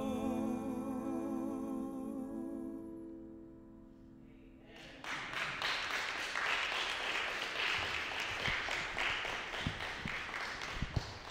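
A man's held final sung note with vibrato, over piano, fades away over about three seconds. About five seconds in, applause breaks out and keeps going.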